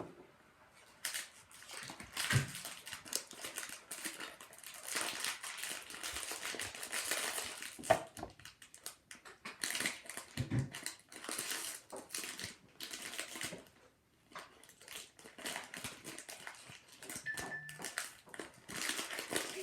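Plastic wrapping of an LOL Surprise toy crinkling and rustling on and off as it is unwrapped by hand, with a few soft thumps.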